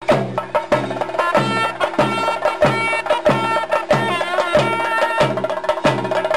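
Traditional-style music: a steady drum beat of about three strokes a second, joined about a second in by a wavering melody line.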